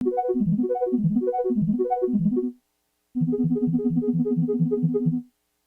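Synthesizer keyboard playing two phrases of quick, short repeated notes, with a brief silent gap between them; the second phrase is a more even, steady pulse.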